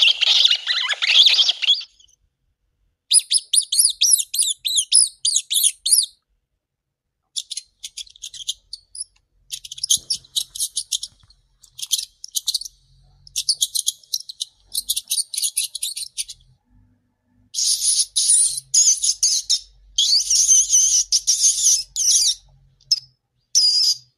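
Rat squeaking: runs of quick, high-pitched squeaks in about ten spells of one to three seconds, with short silent gaps between.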